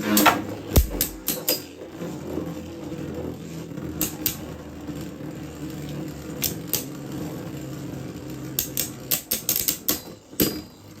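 Beyblade Burst tops, Zest Achilles among them, spinning in a plastic stadium: a steady spinning hum broken by sharp clacks as the tops strike each other, with a quick rattle of hits about a second in and rapid flurries of clacks near the end.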